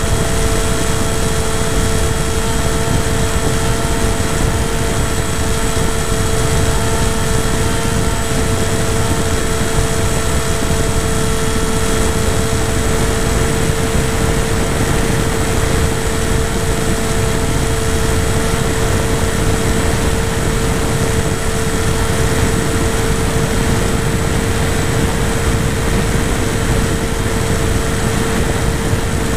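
RC model airplane's motor and propeller running at a steady throttle in flight, a constant pitched hum with fainter higher tones. Heavy wind rush over the onboard camera's microphone.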